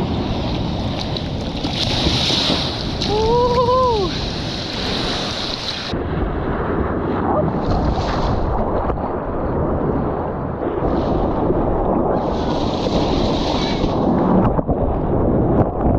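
Breaking ocean surf and churning whitewater rushing and splashing around a bodyboard during a wave ride, with wind buffeting the microphone. A short rising-and-falling cry sounds about three seconds in.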